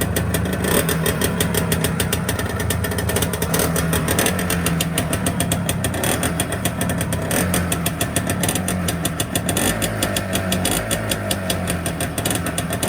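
Izh Planeta Sport's single-cylinder two-stroke engine running steadily, a fast, even patter of exhaust pulses.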